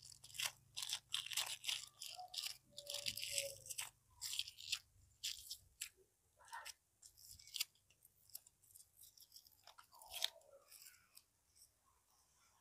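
Thin plastic wrapper crinkling faintly in the fingers as small pieces of soft candy are wrapped and twisted shut, in irregular short crackles that thin out after about ten seconds.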